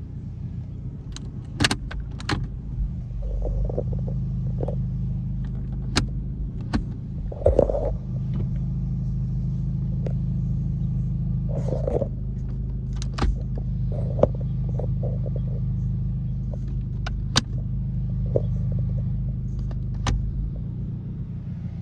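A car engine idling with a steady low hum, with scattered metallic clicks and clunks on top.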